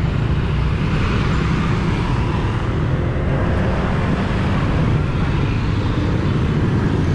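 Street traffic: motor scooters riding past, their engines and tyres making a steady, unbroken noise.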